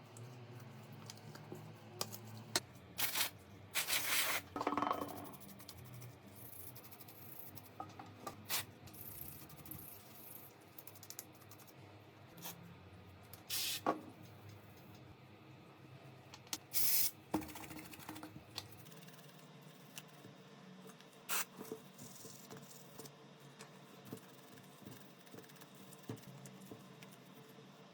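Small tools and phone parts being handled during a smartphone repair: scattered light clicks and taps with a few brief scrapes, separated by quiet stretches.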